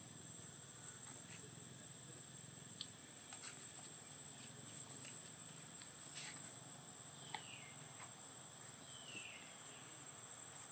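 Quiet outdoor ambience: a steady high-pitched insect drone with scattered faint clicks, and two short falling squeaks in the second half.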